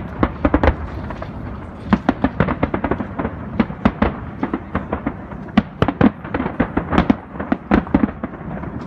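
Aerial firework shells bursting in quick, irregular succession, several sharp bangs a second over a continuous low background.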